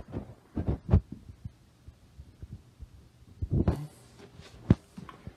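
A few short low thumps a little under a second in, a brief rustle about three and a half seconds in, and a single sharp click near the end, with quiet between them.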